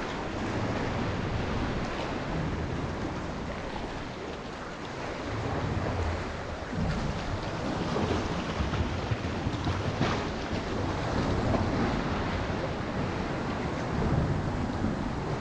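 Ocean waves washing and surging in slow swells, with wind buffeting the microphone.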